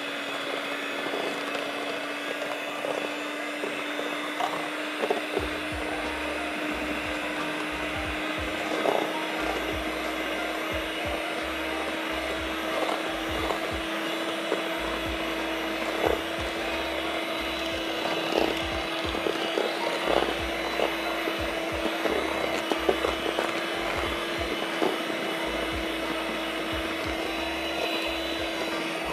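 Electric mixer beating egg whites and sugar into meringue: a steady motor whine, with the beaters knocking against the bowl now and then.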